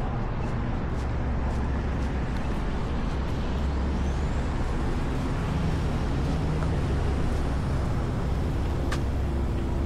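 Steady low rumble of road traffic, with one sharp click near the end.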